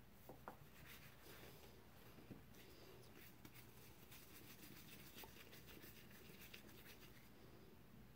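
Faint scratchy rubbing of soft bread dough being rounded into a ball under the hand on a flour-dusted stone countertop, with a couple of faint taps near the start as the plastic bench scraper presses down onto the counter.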